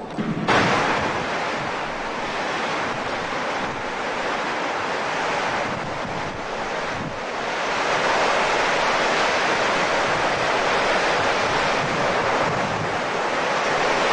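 Tornado winds arriving suddenly about half a second in, then a steady rush of wind battering the camera microphone, growing louder about eight seconds in.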